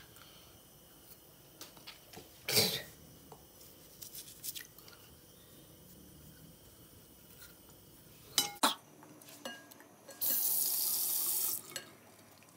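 Bathroom sink tap turned on near the end, its water running for about a second and a half with a steady hiss into the ceramic basin. Before that, a quiet stretch with a few short knocks and clicks.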